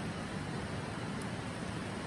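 Steady rushing of a shallow river flowing over stones, an even hiss with a low rumble underneath, with a couple of faint ticks about a second in.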